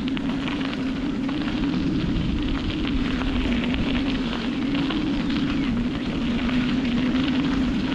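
Bicycle rolling along a dirt trail: tyres crunching over the dirt and grit, with wind buffeting the microphone, a steady loud rumble with a low hum and a constant crackle.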